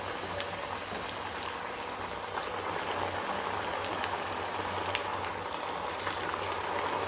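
Potato snacks deep-frying in hot oil: a steady sizzle with scattered sharp crackles and pops.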